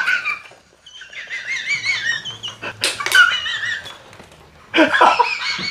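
High-pitched, wavering laughter, broken by sudden sputtering coughs about three and five seconds in from a man who has just had water go up his nose.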